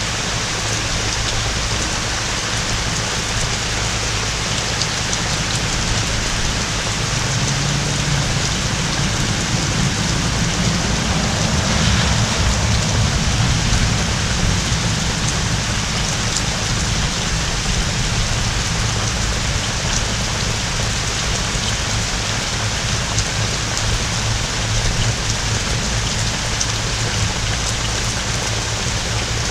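Heavy rain pouring down steadily from a hurricane's outer band. A low rumble of distant thunder swells about ten seconds in and fades a few seconds later.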